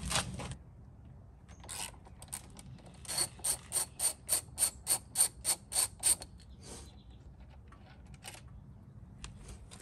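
Hand ratchet clicking in a quick, even run of about a dozen strokes, about three a second, as a bark buster mounting bolt at the end of the motorcycle's handlebar is backed out, with a few loose tool clicks before and after.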